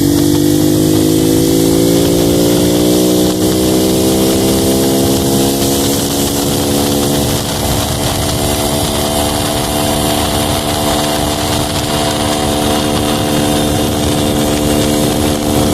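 Honda Pop 110's small single-cylinder four-stroke engine running, its pitch rising gradually over the first several seconds and then holding steady.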